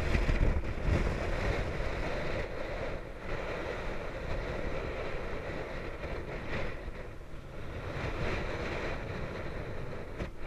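Wind buffeting the microphone: a steady, uneven rush strongest in the low end, with no distinct events.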